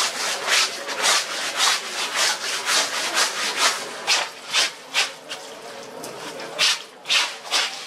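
Stiff-bristled scrub brush scrubbing wet cloth on a concrete washing slab by hand, in quick back-and-forth strokes about three a second, easing off briefly a little past the middle. Water from a tap runs onto the cloth.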